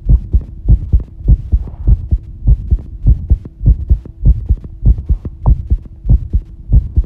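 Fast human heartbeat heard close up: a steady rhythm of low paired thumps, a little more than one beat a second, with a faint steady hum underneath.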